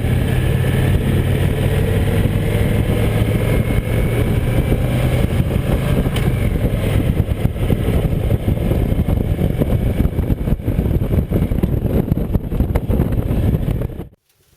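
Motorcycle riding over a rough, unpaved construction road: the engine runs steadily under heavy wind and road noise, and the sound cuts off abruptly near the end.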